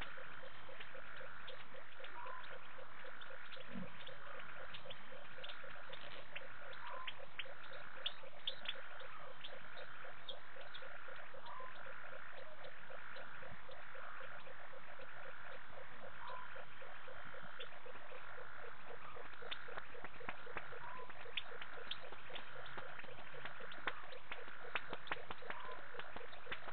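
A night chorus of frogs: a fast, even run of pulses, with a short rising call repeating about every five seconds and scattered clicks.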